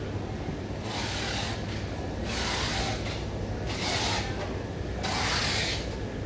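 Rasping, scraping strokes, about one every second and a half, each lasting about half a second, over a steady low hum.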